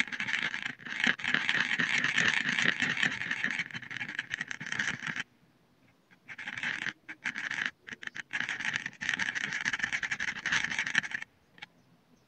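Thick paint being stirred and smeared with a thin stick: a dense, crackly wet scraping that pauses for about a second near the middle and stops shortly before the end.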